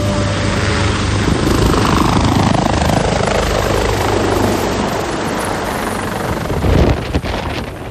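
Helicopter running close by: a loud steady rotor chop under heavy blade and turbine noise, with a whooshing band that falls in pitch over a few seconds. Near the end rough gusts buffet the microphone, the loudest moment.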